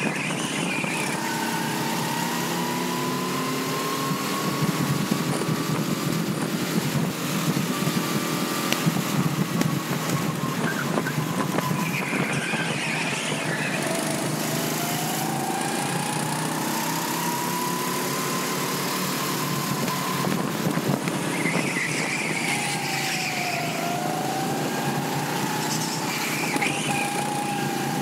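Go-kart engine running at speed, heard from on board over a steady rushing noise. Its pitch rises and falls with the throttle, dropping twice as the kart slows for corners and climbing again as it accelerates out.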